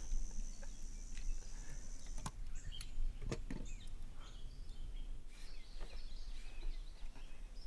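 Outdoor ambience: scattered short bird chirps over a constant low rumble. A steady high whine stops about two seconds in, and a few soft clicks fall around the third second.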